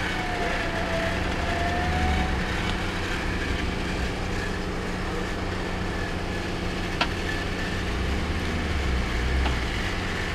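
Jeep Wrangler engine running in deep mud, its low rumble swelling twice as the engine works harder. A single sharp click about seven seconds in.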